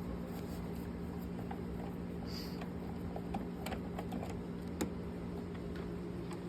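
Small scattered clicks and ticks of a Phillips screwdriver backing out two panel screws, over a steady low hum.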